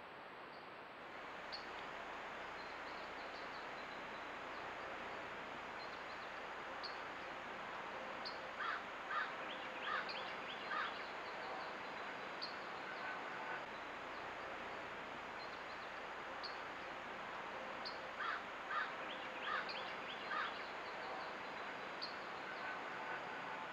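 Crows cawing in two runs of about four caws each, over a steady background hiss, with faint high chirps.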